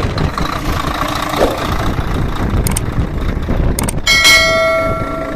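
Mercedes-Benz Actros 2040 truck's diesel engine running steadily after new injectors were fitted, sounding smooth and no longer misfiring. A few sharp clicks come partway through, and a metallic ringing tone sets in about four seconds in.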